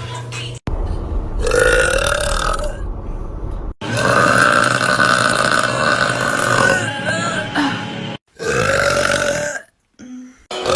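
Young women's loud, drawn-out burps, several in a row, each cut off abruptly. The longest, in the middle, lasts about four seconds.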